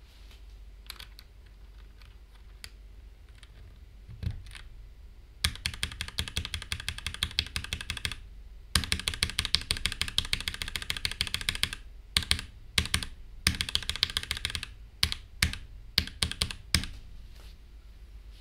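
Typing on a Noir N1 Pro mechanical keyboard fitted with test switches. A few scattered key presses come first, then two runs of fast typing of about three seconds each, then single keystrokes spaced apart.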